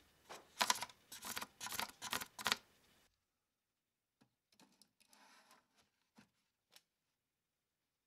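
A quick run of about six sharp, noisy strokes of hand work on the toaster oven's sheet-metal control panel. Then come faint clicks and rubs as a panel-mount PID temperature controller is pushed into a cutout in the panel.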